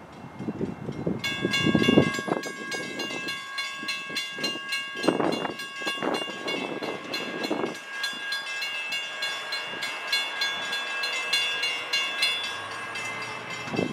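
Railroad grade-crossing bells start ringing about a second in, a fast, even run of metallic dings that keeps going, the warning that a train is approaching the station. Bursts of low rumble rise and fall under it, the loudest early on.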